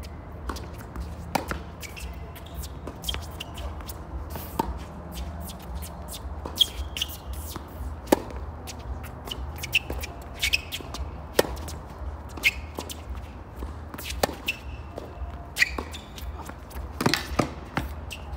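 Tennis rally on a hard court: racket hits and ball bounces at an irregular pace, over a steady low hum.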